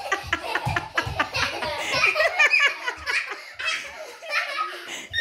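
Hearty, continuous laughter with high, giggling children's laughs among it.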